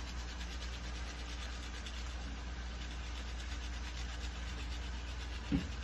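A garlic clove being grated on a small hand grater over a frying pan, a soft scraping, over a steady low hum; a single dull knock about five and a half seconds in.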